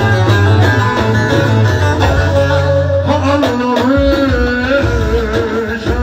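Live, amplified Turkish Middle Eastern-style music: a band with a plucked lute and heavy bass, joined about three seconds in by a male singer's wavering, ornamented melody line.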